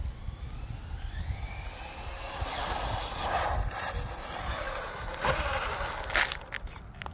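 An RC touring car's 550-size 13-turn brushed motor and gearing whining as the car accelerates, the whine rising in pitch, followed by a louder stretch of tyre and drivetrain noise and a couple of sharp knocks near the end. A low wind rumble on the microphone runs underneath.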